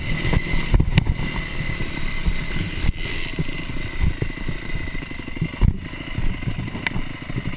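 Honda 250 motocross bike's engine running on the throttle over a dirt track, with frequent knocks and rattles as the bike rides over rough ground.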